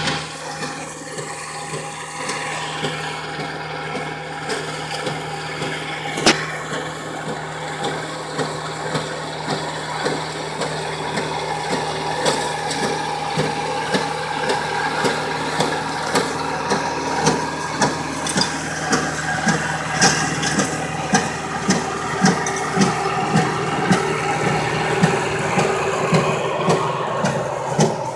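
Case IH 4210 tractor's diesel engine running steadily under load while the New Idea small square baler it drives thumps rhythmically, about one stroke a second, as its plunger packs wheat straw into the bale chamber. The knocking grows more distinct from about halfway through.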